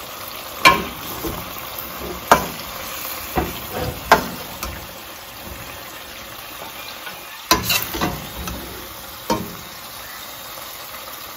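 Chicken juices sizzling in a stainless steel pot, with several sharp knocks and scrapes of a metal slotted spatula against the pot as the chicken leg quarters are lifted out. The knocks come a few seconds apart, with a quick cluster of them about two-thirds of the way through.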